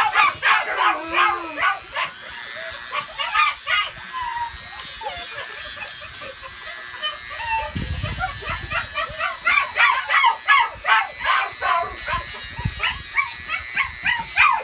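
Puppy yelping and whining in repeated short, high cries while its nails are ground with a Dremel rotary tool, whose faint steady whir sits underneath. The cries ease off for a few seconds midway, then start up again thick and fast.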